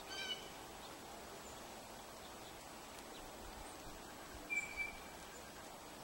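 Short songbird calls at a seed feeder: a brief chirp right at the start and one clear, level whistled note about four and a half seconds in, over faint steady outdoor background noise.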